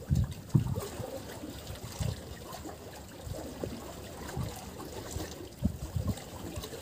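Sea water sloshing and trickling in the gaps between the concrete blocks of a breakwater, with low irregular bumps now and then.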